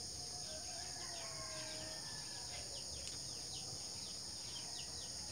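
Steady high-pitched drone of insects, with a bird's short falling chirps repeating through the middle.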